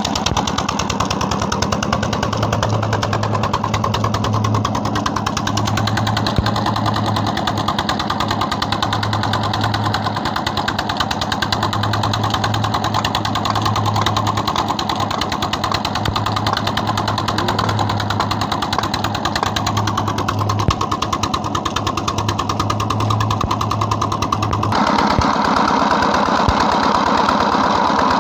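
JD 25 HP single-cylinder diesel engine (1115 type) running steadily under load, a fast even knocking beat from its exhaust as it belt-drives a water pump. About 25 seconds in, water gushing from the pump's outlet pipe into a brick tank joins the engine sound.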